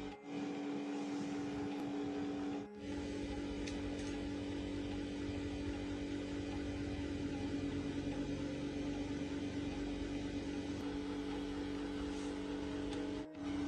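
An electric motor running with a steady, even hum, briefly cut off twice along the way.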